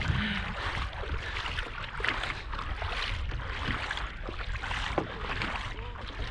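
Wind rumbling on the microphone over uneven sloshing and splashing of shallow water as a kayak is pushed along on foot.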